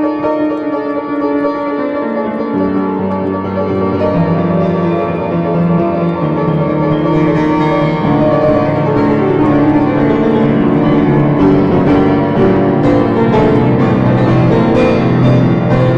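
Instrumental music led by a piano-sounding keyboard, with no singing. Low bass notes come in about two and a half seconds in, and light tapping strokes join in the second half.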